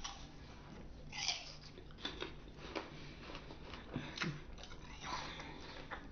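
A Honeycrisp apple snapping and crunching as it is bitten and chewed: a string of short, crisp crunches roughly a second apart.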